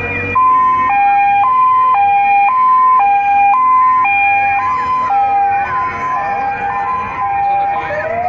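Two-tone siren of a red emergency van, switching between a higher and a lower note about every half second. Near the end a second siren starts up, rising in pitch.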